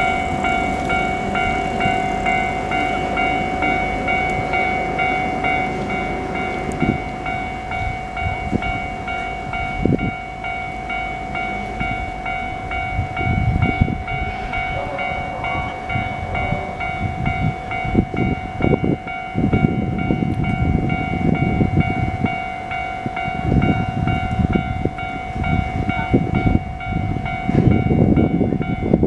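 Japanese level-crossing warning bell ringing without a break in a fast, even electronic clang, while Keio Line electric trains pass over the crossing. Low train noise runs under the bell, giving way to heavy, uneven wheel rumble and clatter over the rails in the second half.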